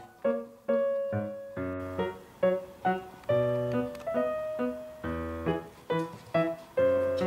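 Background music on piano or keyboard: a tune of separate struck notes, each fading away after it is played.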